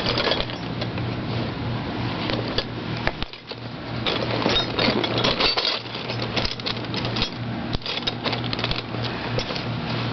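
Metal hand tools and sockets clinking and rattling against each other as they are rummaged through in a toolbox, many small irregular clicks, over a steady low hum.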